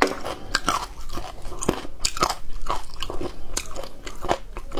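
A person chewing and crunching on braised chicken feet, several irregular crunchy bites and chews a second, biting into the small bones.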